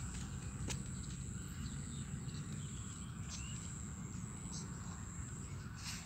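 Outdoor field ambience: a steady high-pitched insect drone over a low rumble on the microphone, with a few faint clicks and rustles.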